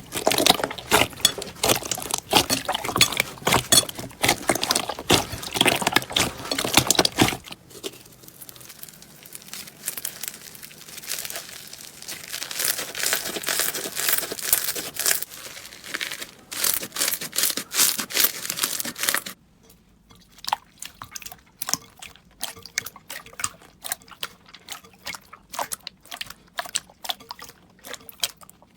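Slime being squeezed, stretched and pressed by hand, giving dense crackling, popping clicks with some wet squelching. The sound changes abruptly about 7 seconds in and again about 19 seconds in as different slimes are handled; the last part has sparser clicks.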